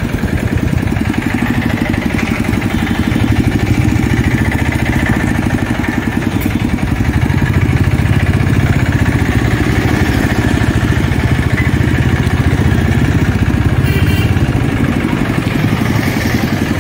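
Motorcycle engine running steadily at low riding speed, heard from the rider's seat with road noise.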